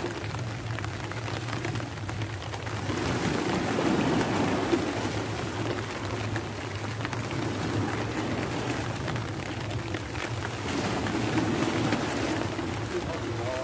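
Steady rain falling, with a constant low rumble underneath.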